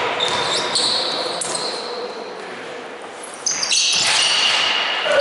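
Basketball game noise echoing in a large sports hall: a ball bouncing on the court amid crowd chatter and short high squeaks. The noise dips for a moment and then rises sharply about three and a half seconds in.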